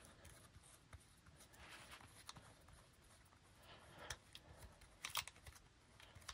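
Faint handling of small metal parts as a threaded metal cap is spun out of an iMac lamp arm by thumb, with scattered light clicks and a short cluster of sharper clicks about five seconds in.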